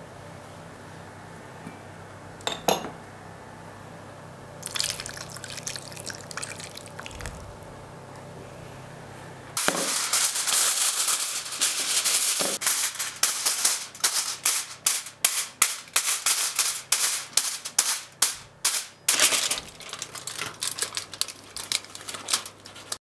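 Aluminium foil crinkling and crackling as it is pulled over a baking dish and crimped around the edges. It starts suddenly about ten seconds in and goes on as many sharp, uneven crackles. Before that there is only a faint steady hum, one click and a brief rustle.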